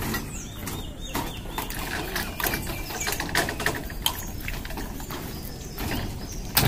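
Scattered light clicks and knocks of electrical PVC conduit and a plastic bend being handled and fitted together.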